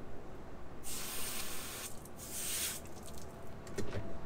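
Two bursts of spraying water hiss, the first about a second long and the second about half a second, each starting and stopping abruptly.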